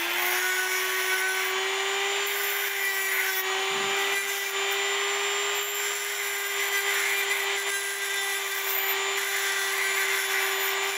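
A Dremel rotary tool runs at a steady high speed with a constant whine, its small abrasive wheel grinding the head of a steel nail with a harsh hiss.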